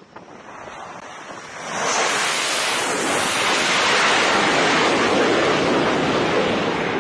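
Fighter jet's engines at high power as it climbs away just after a catapult launch: a steady rushing noise that swells sharply about two seconds in and stays loud.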